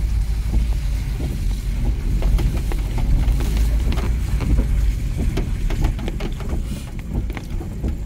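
A vehicle driving on a wet road, heard from inside the cabin: a steady low rumble of engine and tyres, with irregular light knocks and ticks over it.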